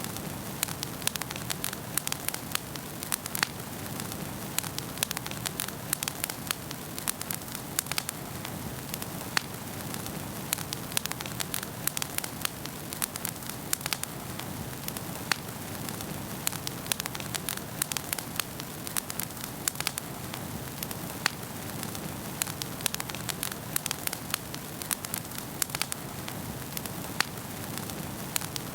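Wood fire burning in a fireplace: a steady low hiss and rumble of flames with frequent irregular sharp crackles and pops.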